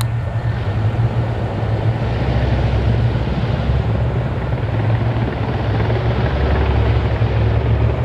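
Engine of an amphibious armored vehicle running steadily with a loud low drone as the vehicle climbs out of the river onto the bank.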